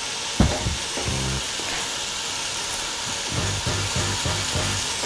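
Diced bacon sizzling steadily as it renders in the pan, with a sharp knock about half a second in.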